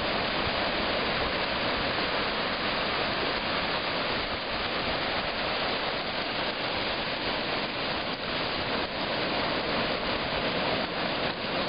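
Ocean surf washing onto a sandy beach, a steady even hiss of breaking waves and foam.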